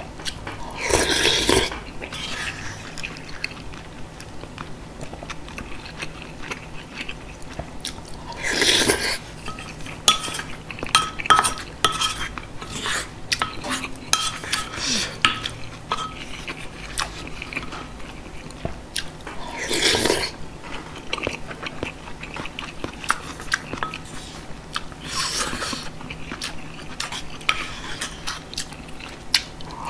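Wooden spoon scraping and clicking against a ceramic pot while soup-soaked rice in spicy beef soup (yukgaejang) is scooped up and chewed wetly, with four louder breathy slurps spread through.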